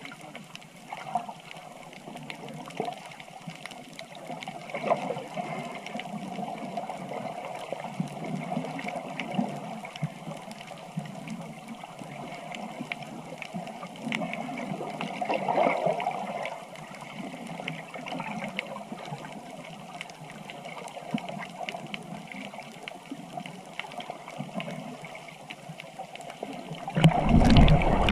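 Water gurgling and trickling steadily, turning into a much louder, deeper rush of water just before the end.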